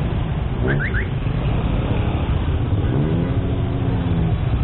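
Street traffic at a standstill: motorcycle and car engines running with a steady low rumble. About a second in come three short, quick rising chirps, and a little after three seconds a nearby engine's pitch rises and holds for about a second.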